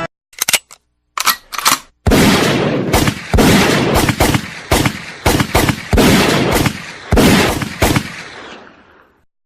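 Gunshot sound effect: a few short clicks, then a run of loud gunshots at irregular spacing, about two a second, each with an echoing tail, dying away near the end.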